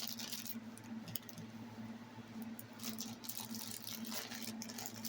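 Faint rustling and light clicks of materials being handled, over a steady low hum.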